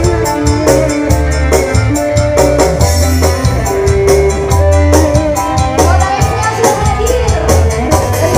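Live dangdut band playing the song: electric guitar and keyboard melody over a steady bass line and fast, even percussion.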